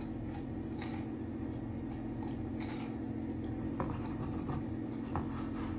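Metal fork working soft butter into icing sugar in a glass bowl, giving a few faint scrapes and soft taps, over a steady low background hum.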